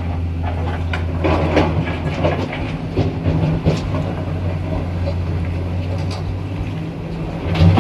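Diesel engine of heavy earthmoving machinery running steadily with a low drone, while rock muck clanks and rattles against steel, heaviest in the first half and with one loud clank near the end.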